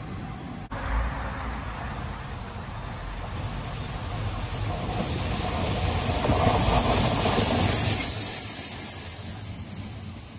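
EF65 electric locomotive hauling unpowered Tokyo Metro Marunouchi Line 2000-series cars past at track level: the rumble of steel wheels on the rails builds, is loudest past the middle, then eases as the towed cars roll by.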